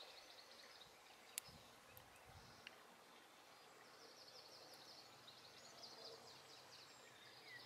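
Near silence: faint outdoor ambience with a few small ticks in the first three seconds and a faint, rapidly repeated high chirping from about halfway through.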